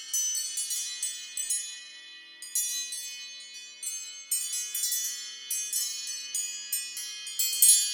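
An iPhone ringtone playing: a chiming, bell-like melody of quick, high struck notes, several a second, each ringing out briefly.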